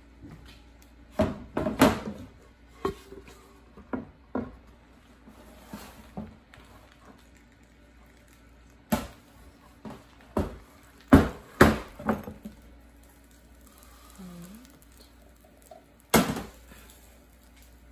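A wooden cutting board and a skillet knocking and clattering against a stainless steel counter as the pastry is flipped out of the pan onto the board. The knocks come in a string of sharp single hits, loudest around the middle.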